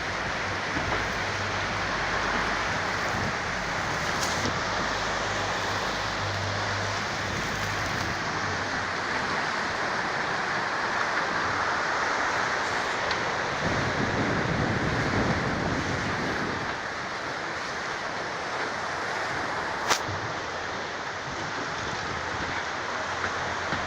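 Waterfall rushing as a steady, even roar of falling water, with a single sharp click about four-fifths of the way through.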